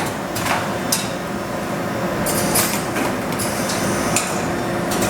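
Duplo Quadrimax II four-clamp perfect binder running its cycle: a steady machine hum broken by several sharp mechanical clacks and short hisses.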